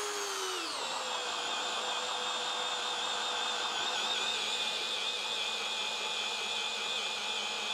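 Craftsman cordless drill driving a large wood auger bit into a log, its motor whining under heavy load. The pitch drops within the first second as the bit bites in, then holds steady as it bores.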